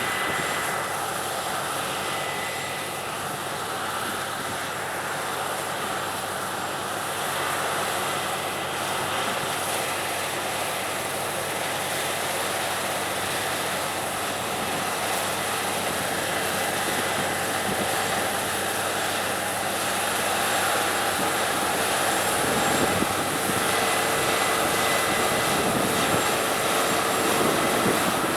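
Claas Lexion 670 combine harvester cutting and threshing wheat: a steady machinery drone with a few steady whining tones running through it, getting gradually louder over the last several seconds.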